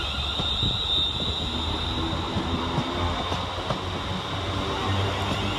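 West Midlands Railway Class 350 Desiro electric multiple unit running past, a steady rumble of wheels on rails with scattered short clicks and a steady high electric whine.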